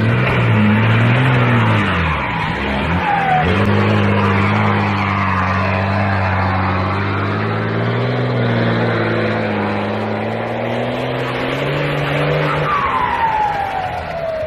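A motor vehicle's engine running, its pitch wavering up and down for the first few seconds and then holding steady, with a high squeal gliding downward near the end.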